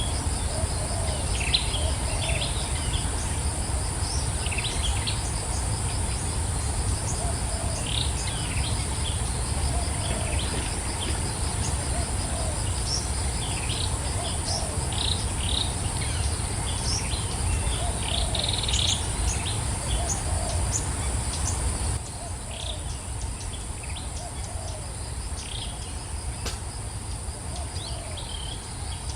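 Birds chirping in short, scattered calls over a steady, high-pitched insect drone, with a low rumble underneath. The whole sound drops abruptly in level about two-thirds of the way through.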